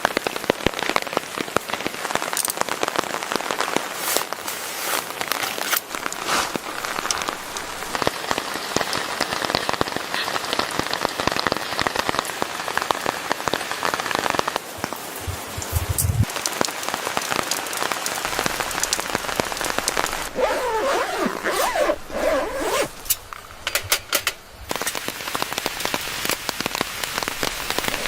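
Rain falling steadily on a surface, a dense patter of many small drops, with a short wavering change in the sound about twenty seconds in.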